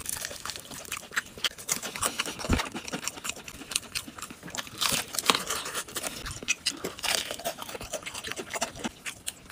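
Crunching and chewing of a crisp snack, as a run of irregular sharp crunches.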